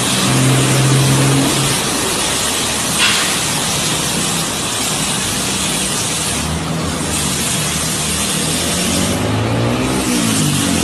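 Automatic car wash machinery running: large rotating brushes spinning, making a steady, loud rushing noise over a low motor hum.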